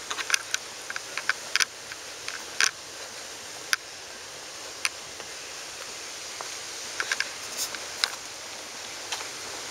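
Outdoor ambience: a steady hiss with irregular short, sharp clicks and taps scattered through it.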